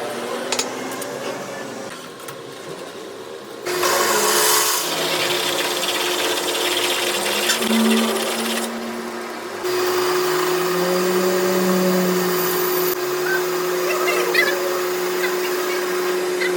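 Workshop power tool or machine running, a steady mechanical drone with a hiss over it, changing abruptly about 4 and 10 seconds in as one stretch of work gives way to the next; from about 10 seconds a steady hum holds on.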